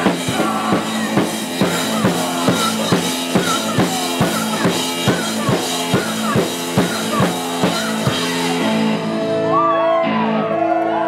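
Live rock band playing loud and fast, with a driving drum beat of about three hits a second under distorted guitars. About eight and a half seconds in the drums stop and the guitars ring on in long, bending notes, as at the close of a song.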